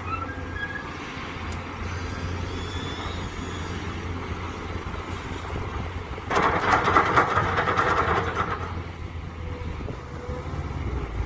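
Mini excavator's engine running steadily under a low hum; about six seconds in a loud gritty crunching and scraping lasts roughly two seconds, the bucket digging into soil and stones.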